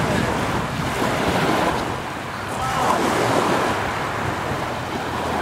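Wind blowing on the microphone over small waves washing onto a pebble beach, a steady rushing noise.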